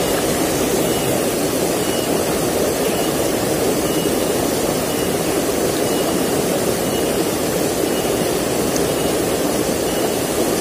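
Fast, shallow river rushing over rocks and small rapids: a steady, even noise of running water.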